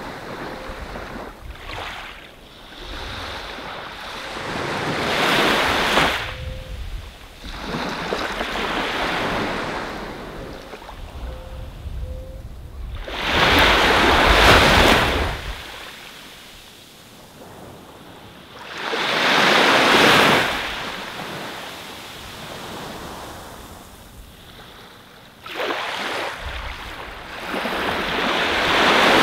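Surf: small waves breaking and washing up a beach, the sound swelling and falling back in about five surges several seconds apart, the loudest about halfway in.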